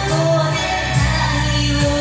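Music from a karaoke backing track of a pop ballad, with a bass line whose notes change every second or so.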